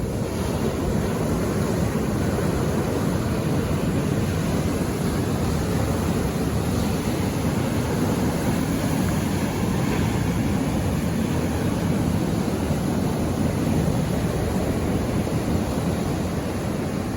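Ocean surf washing steadily onto the shore, a continuous low rumble with no clear breaks between waves.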